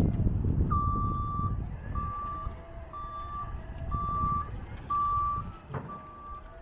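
Reversing alarm of a 2005 Hyster 1.80 battery-electric forklift: a steady high beep repeating about once a second, starting just under a second in. Underneath are a faint wavering lower whine and low rumble from the truck moving, with a single click near the end.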